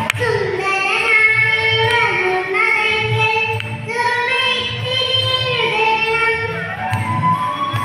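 A young girl singing into a microphone, holding long notes that slide up and down in pitch.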